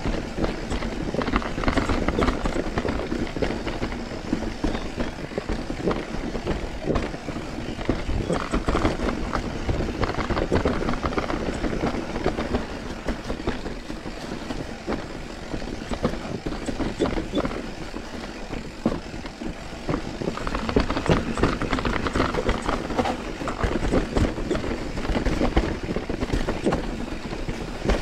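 Mountain bike riding over a rough, leaf-strewn trail: a steady clatter of tyres on the ground and the bike rattling over bumps, with wind buffeting the microphone.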